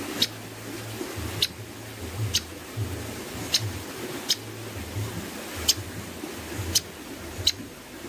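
Lesser coucal giving short, sharp clicking calls, about eight of them at uneven gaps of roughly a second, over a faint low hum.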